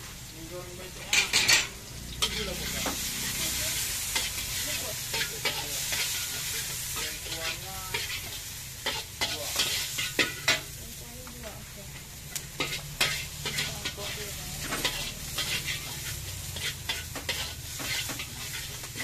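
Egg, diced pork and greens frying in a hot wok, sizzling steadily, while a metal spatula scrapes and clacks against the wok as the food is stirred. A loud clatter of the spatula comes about a second in.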